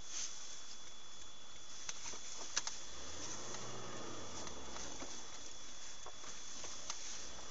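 Dashcam recording inside a stationary vehicle: a steady hiss with a thin constant whine, scattered light ticks, and a faint low hum that swells and fades about three to five seconds in. No crash impact or explosion is heard.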